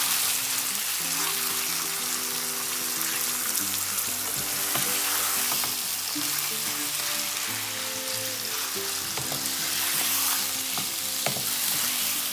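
Raw chicken strips sizzling in hot oil in a granite-coated wok while a wooden spoon stirs and turns them. The sizzle is steady, with a few small knocks of the spoon.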